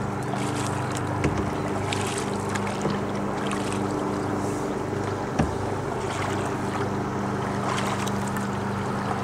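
Canoe paddle strokes dipping and splashing in lake water every couple of seconds, with two sharp knocks, over a steady low hum.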